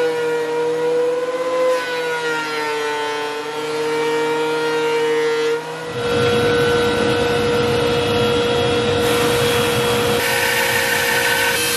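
Electric power tool's motor running with a steady whine that wavers slightly in pitch. About six seconds in, a coarse rushing noise joins it over the same whine.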